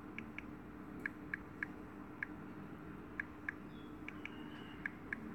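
Soft key-press clicks of typing on a smartphone's on-screen keyboard: about ten short ticks at an uneven typing pace, over a faint steady hum.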